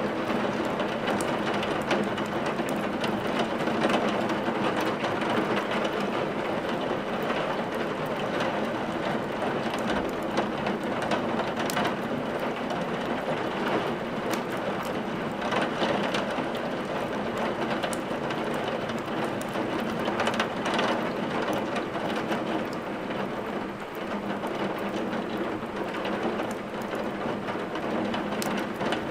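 Steady heavy rain, an even hiss throughout, mixed with scattered sharp crackles of wood burning in a fireplace.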